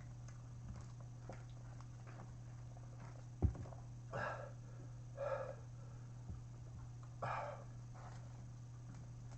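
A single thump, then three short, hard breaths from a man eating fiery Nashville hot chicken, over a steady low hum.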